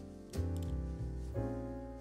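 Background music: a piano melody over a bass line, with new notes struck about half a second and again about a second and a half in.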